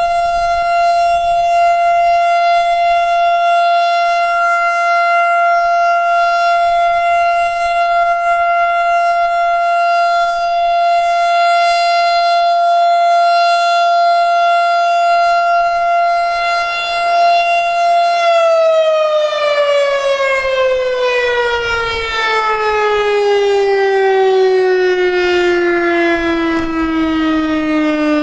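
Federal Signal STH-10 outdoor warning siren sounding the steady Alert tone, with the airy rush its owner calls a "snow blower". About eighteen seconds in the signal ends and the siren winds down, its pitch falling slowly and steadily.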